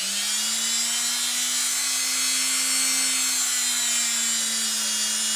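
Electric rotary tool fitted with a small sanding drum, running unloaded at a steady speed with a whine and a high hiss. Its pitch creeps up slightly in the first second as it settles to full speed.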